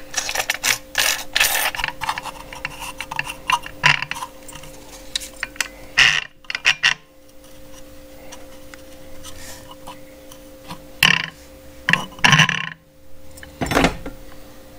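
Clicks, knocks and scrapes of cordless angle grinders and cutoff discs being handled and set down on a tool chest top. The sounds come irregularly, with louder knocks about six seconds in and again near the end, over a faint steady hum.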